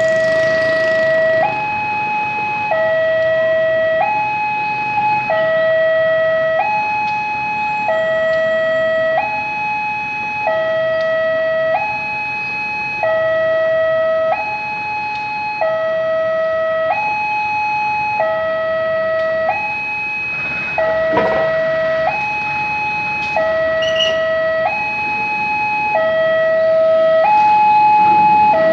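Two-tone hi-lo warning alarm, switching steadily between a lower and a higher tone about every second and a quarter. A single knock is heard about 21 seconds in.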